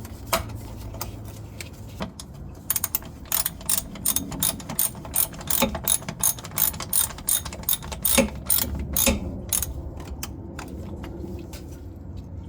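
Ratchet wrench clicking through a run of quick strokes, about three clicks a second, over a low steady hum.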